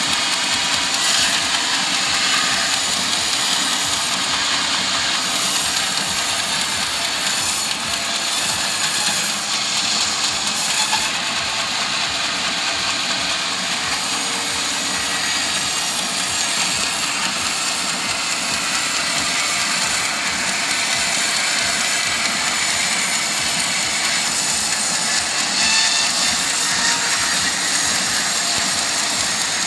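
Engine-driven sawmill saw running steadily as it cuts through teak wood.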